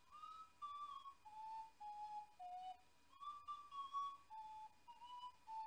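Ocarina playing a slow, quiet melody of clear, pure notes, about ten of them, in phrases that step down in pitch.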